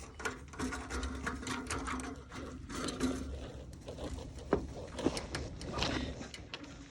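A wrench tightening the fittings on a newly installed TXV (thermostatic expansion valve): an uneven run of small metallic clicks and scrapes, over a faint steady hum.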